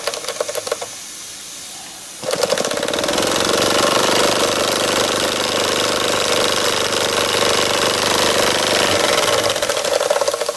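DM1 model two-cylinder steam engine running with a rapid, even mechanical beat. It drops to a much quieter level about a second in, comes back about two seconds in, then runs steadily and falls away again near the end.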